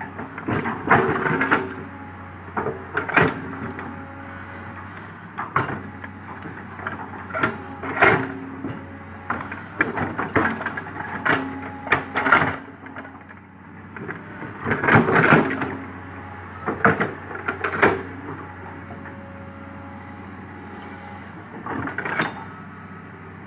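Komatsu PC200 hydraulic excavator working: its diesel engine runs steadily under the bucket digging, with repeated clanks and scrapes of the bucket against earth and stone, some in quick clusters.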